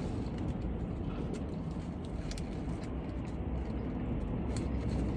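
Steady low rumble of a running vehicle, with faint scattered clicks.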